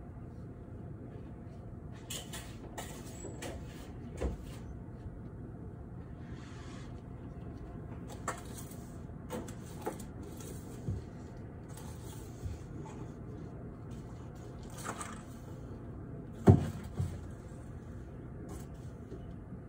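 Steady low hum of city background noise, with scattered light clicks and knocks; the loudest knock comes a few seconds before the end.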